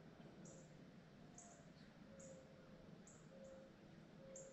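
Near silence in the woods: faint short high chirps about once or twice a second, with a few faint low whistled notes.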